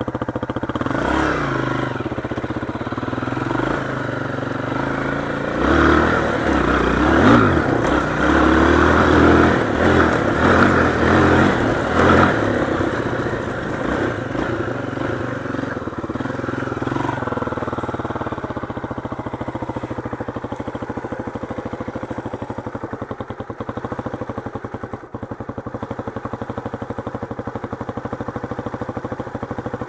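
Motorcycle engine running on a dirt trail ride, its revs rising and falling, loudest and most uneven about a fifth to two-fifths of the way in, then settling into a steadier, lower run for the second half.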